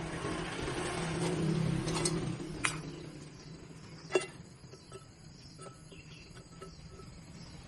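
A few sharp metallic clinks, the loudest about four seconds in, over a low steady hum that fades after about two and a half seconds.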